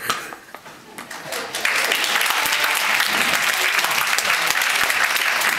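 Audience breaking into applause about a second and a half in, then clapping steadily at the end of a stage performance.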